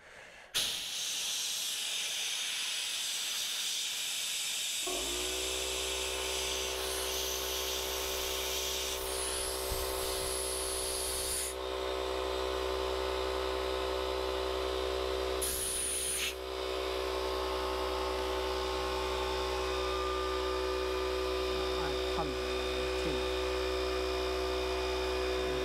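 Electric air pump running with a steady hum, inflating a fishing buoy, with air hissing throughout. The hiss starts alone and the pump's hum comes in about five seconds in.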